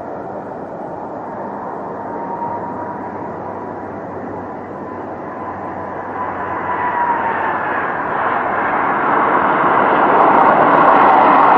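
Jet engines of an Air Transat Airbus A330 airliner landing: steady engine noise with a high whine that dips slightly in pitch about two-thirds of the way through, then grows louder near the end as the jet rolls out on the runway.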